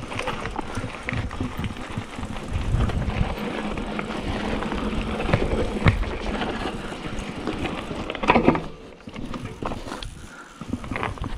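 Mountain bike riding down a rough, rocky dirt trail: tyres crunching over gravel and loose stones, with a constant rattle of small knocks from the bike and a low rumble. A harder jolt comes about eight seconds in, after which it goes quieter for a moment.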